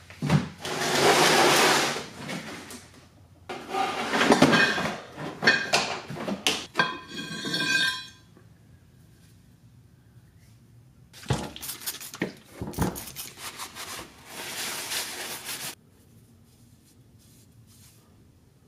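Pieces of scrap steel clanking and scraping against each other in a plastic tote as it is rummaged through, one piece ringing briefly about seven seconds in. After a pause come a few sharp knocks and more rattling as a heavy sledgehammer head is lifted out.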